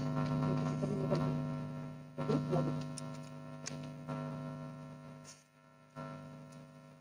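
Steady low electrical hum, with eating noises over it: soft noodle slurps and a few light clicks of chopsticks.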